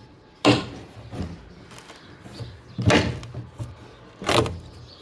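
Old wooden barn boards banging as they are pulled off and handled during demolition: three loud knocks, a little over a second and a half apart or more, each with a short ringing tail.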